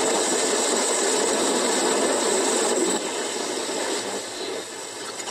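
A steady rushing noise with no clear tone or rhythm, like static or machine noise in a film soundtrack. It drops a little in level about three seconds in.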